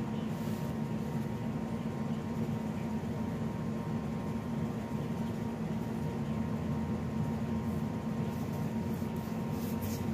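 Steady low machine hum with a faint high tone running through it, and a little faint rubbing and handling noise near the end.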